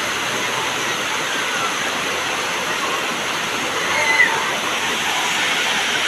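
Waterfall rushing steadily as water pours over terraced rock, with faint people's voices through it, one voice briefly louder about four seconds in.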